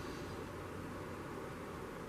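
Steady low hiss of room tone, with no distinct event.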